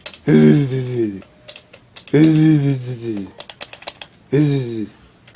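A person's voice making three drawn-out sounds without words, each falling in pitch, about two seconds apart, with a quick run of sharp clicking taps between the second and third.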